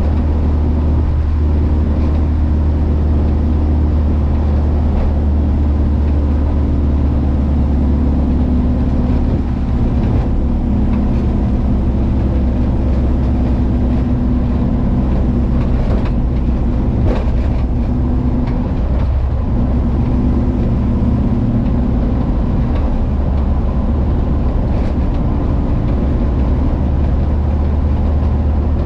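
Volkswagen Kombi's engine running under way at a steady cruise, a continuous low drone over road noise. The note eases briefly about a third of the way in and again around two-thirds.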